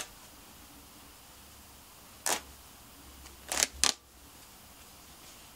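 Short sharp snaps of thread as the stitching of a trouser seam is unpicked and pulled apart: one at the start, one a little past two seconds in, and two in quick succession about three and a half seconds in.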